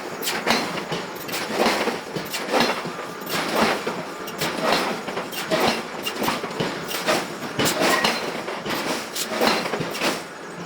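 Metal-on-metal clanks and knocks in a forging shop, coming about once a second over a steady din of shop noise.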